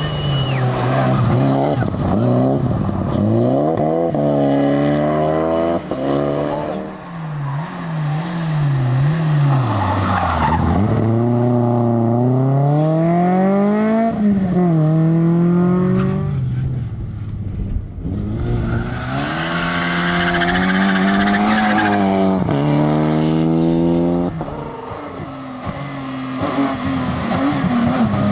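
Rally car engines revving hard, their pitch repeatedly climbing through the revs and dropping at each gear change or lift, with tyres skidding.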